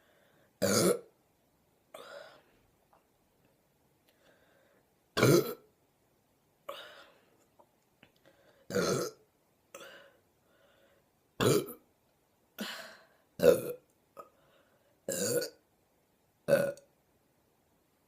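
A woman burping over and over after drinking Pepsi: about seven loud burps with a few quieter ones in between, each one short, coming every couple of seconds.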